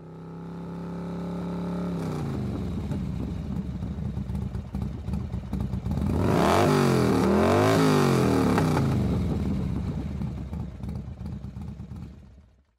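Motorcycle engine fading in at a steady idle, then running lumpily and being revved: its pitch rises and falls several times in the middle, at its loudest, before the sound fades out near the end.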